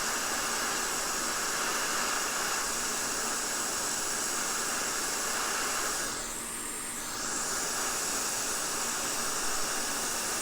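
Hot air rework station blowing a steady hiss of hot air onto a chip to melt the solder beneath it. The hiss dips briefly about six seconds in.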